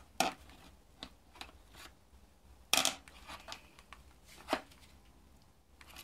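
Long screwdriver scraping and clicking against a plastic wiring-harness connector as it is pried at: a series of short sharp clicks and scrapes, the loudest about three seconds in and another about a second and a half later.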